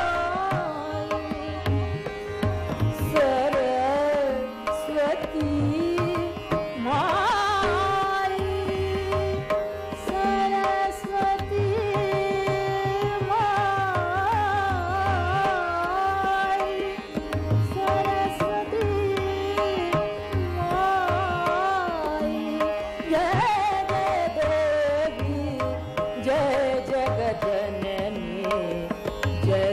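Hindustani classical music: tabla keeping a steady rhythm under a tanpura drone, with a melodic line of voice and sarangi gliding and ornamenting above it.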